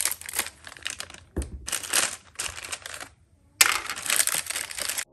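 Clear plastic bag of decorative fireplace crystals crinkling in the hands as it is cut open with scissors, with a low thump about a second and a half in. There is a brief pause, then a louder stretch of crinkling.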